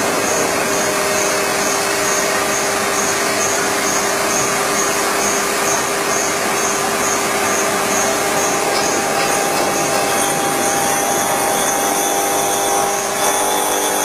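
MBJ99 marble and granite edge polishing machine running: a steady electric motor hum under a continuous grinding hiss, with a faint high pulse about twice a second.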